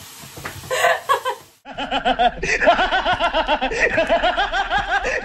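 A woman laughing briefly, then, after a sudden cut, a man's long, loud laugh in rapid repeated 'ha-ha' pulses, spliced in from an old film clip as a villain's laugh.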